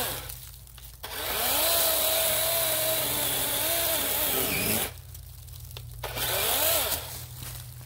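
Cordless DeWalt 20V XR chainsaw's electric motor running in bursts while cutting thick grapevines. A run of about three and a half seconds has its pitch dipping and rising as the chain bites, then it stops for about a second, followed by a short burst near the end.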